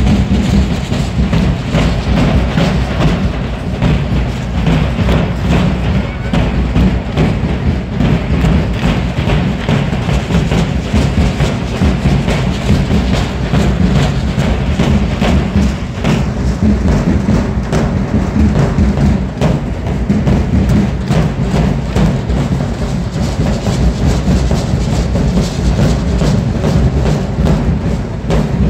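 Danza apache drumming: several large bass drums beaten in a steady, driving rhythm that runs without a break.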